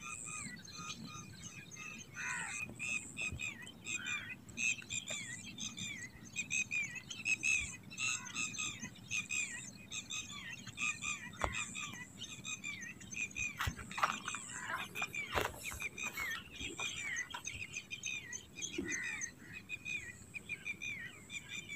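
Many small birds chirping and twittering in quick, overlapping short calls, with a few soft knocks about halfway through.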